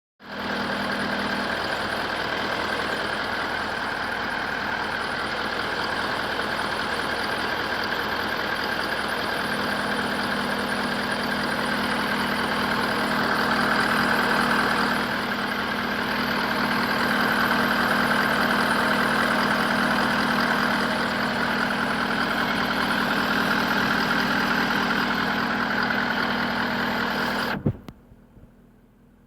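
Car engine idling under the hood with a steady high-pitched whistle over the running sound, a whistle that should not be there on a new car. The sound cuts off suddenly near the end.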